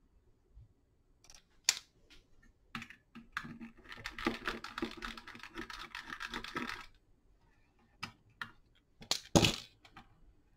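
Clicks and light clatter from circuit boards and a plastic battery-pack housing being handled, with a stretch of rapid small clicks and rustling in the middle and a louder pair of clicks near the end.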